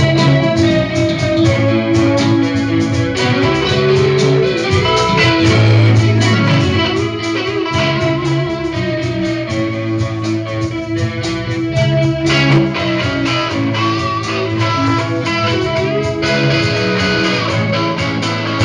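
A live band jamming, with guitars to the fore in steady, loud music that never stops.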